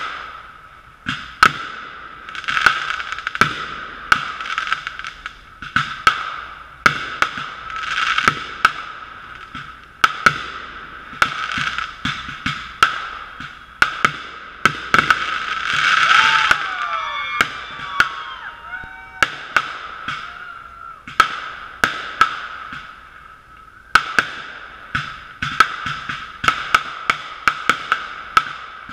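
Fireworks going off in a rapid series of bangs with crackling between them, heard through a sealed GoPro waterproof housing that muffles the sound. About halfway through, several whistles glide downward in pitch over the bangs.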